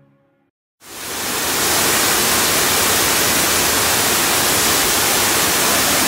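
The tail of background music fades out, then after a brief silence the steady rush of a waterfall pouring into a rock pool comes in, rising over about half a second and holding even.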